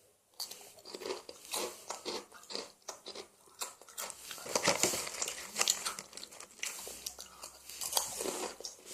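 Crunchy snack chips being bitten and chewed close to the microphone: irregular crisp crackles, busiest about halfway through.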